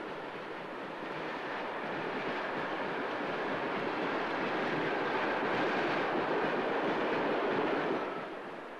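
A steady rumbling vehicle noise that grows louder over several seconds, then drops away suddenly about eight seconds in.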